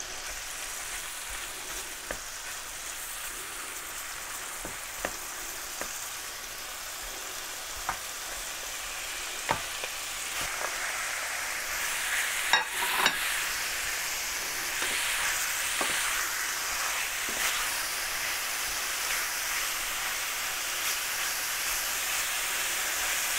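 Cubes of meat searing in hot butter in a stainless frying pan, a steady sizzle stirred with a wooden spatula that knocks against the pan now and then. The sizzle grows louder about halfway through as the rest of the meat goes in, and the sharpest knocks come just after that.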